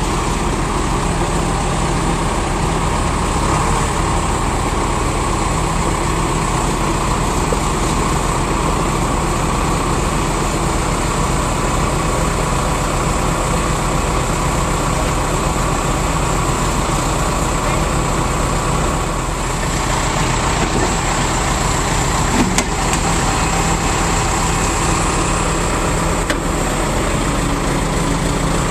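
Backhoe engine running steadily at idle, with a single sharp knock about two-thirds of the way through.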